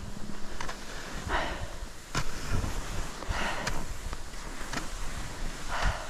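Skis sliding over tracked-out snow, with three swishes of snow in the turns roughly two seconds apart and a few sharp clicks, over wind rumbling on the microphone.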